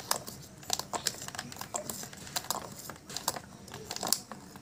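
A metal spoon stirring a glass of mango milkshake, clinking irregularly against the glass, several sharp clinks a second, stopping about four seconds in. The stirring mixes in the sugar, chaat masala and black salt just added.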